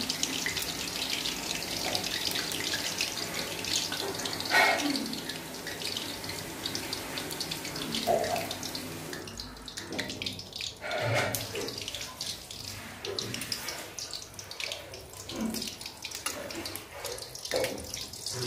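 Malpua batter deep-frying in hot oil in an iron wok: a steady crackling sizzle, with a few brief knocks of the metal spatula against the wok.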